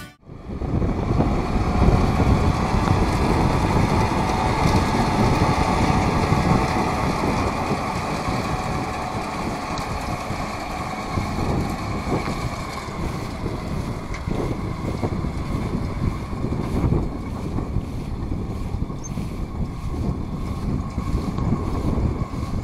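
Kubota M6040SU tractor's diesel engine running steadily as it pulls a round straw baler, with wind buffeting the microphone.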